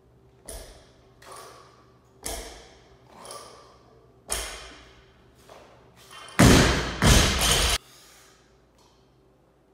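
A loaded barbell with bumper plates thudding and rattling against a rubber gym floor, again and again, about a second apart. Near the end come two much louder crashes that overload the recording.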